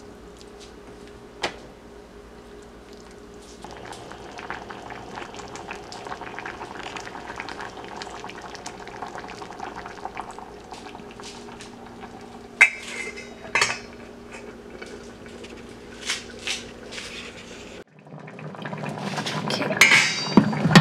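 Vegetable soup bubbling at a simmer in a stainless steel saucepan, with a few sharp clinks of a spoon against the pot about two-thirds of the way in. Near the end the sound breaks off and a louder stretch of stirring in the pot follows.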